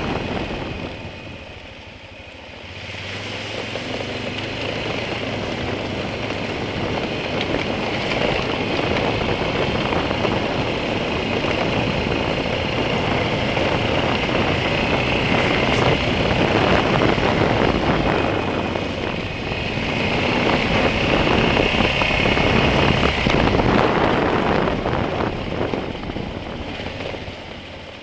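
All-terrain vehicle (quad) engine running while riding down a steep, rough gravel trail, mixed with wind and rolling noise. The sound dips about two seconds in, swells twice, and fades near the end as the quad slows.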